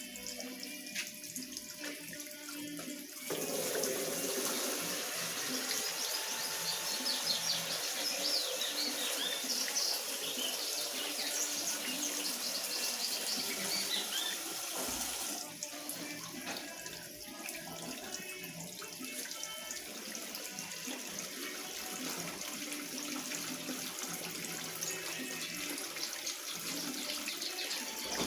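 Water running and splashing inside a Consul CWS 12 washing machine, louder from about three seconds in until about fifteen seconds in.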